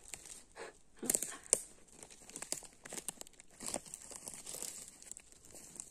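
Footsteps crunching and rustling through dry leaves, twigs and pine needles on a forest floor, an irregular run of crackles and snaps, the sharpest about a second in.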